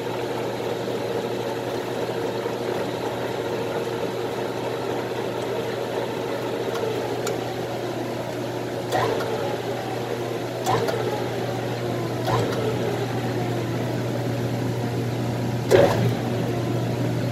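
Lathe motor running steadily at low speed, a low even hum, while a reusable hydraulic hose fitting insert is threaded in. A few sharp knocks come in the second half, the loudest near the end.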